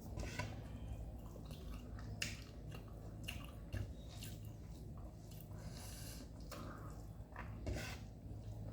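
A person chewing a mouthful close to the microphone: soft wet mouth sounds with irregular sharp crunches. The cooked vegetable she is eating stays crunchy when chewed.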